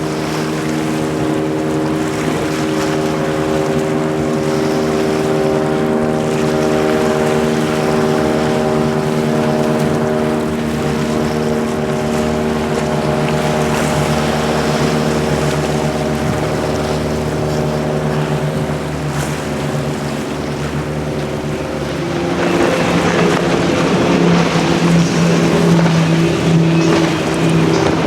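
Midnight Express powerboat's outboard engines running at a steady pitch as it moves through the water. About 22 s in the engine note shifts and grows louder, with more rushing wash mixed in.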